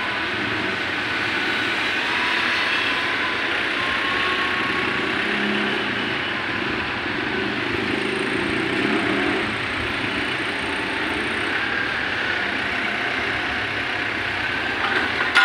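Wheeled excavator's diesel engine running steadily, mixed with the noise of street traffic and passing motorbikes.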